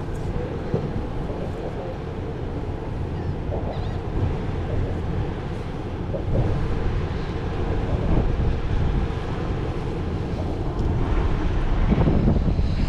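Wind buffeting the microphone, a steady low rumble without a break.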